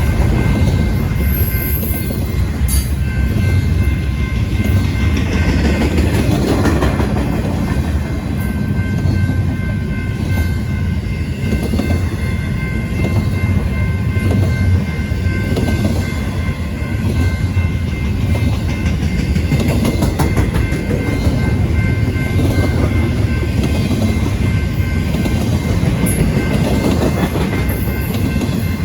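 A train passing, its railcars rolling by with a steady low rumble and the clickety-clack of wheels over the rail joints, with a faint steady high tone over it.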